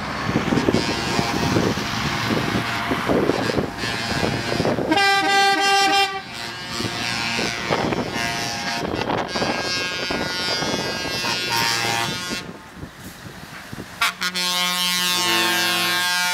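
Trucks driving past with engine and road noise, sounding air horns: a short blast about five seconds in, fainter blasts later, and a long blast of several notes at once starting near the end.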